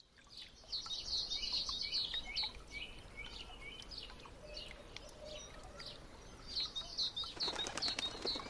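Small birds chirping, many short high calls overlapping, busiest at the start and again near the end, over a faint steady hiss.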